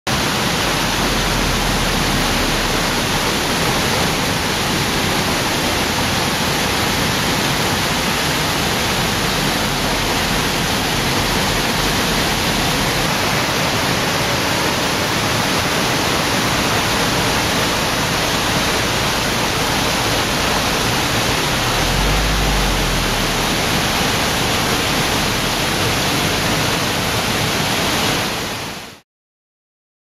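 Waterfall and river water rushing over and between rock boulders: a steady, loud rushing noise, with a low rumble twice, once near the start and once about two-thirds through. It fades out just before the end.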